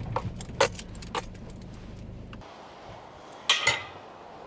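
Vehicle engine idling, then switched off about two and a half seconds in, with keys jangling and clicking at the ignition. A short, louder clatter follows near the end.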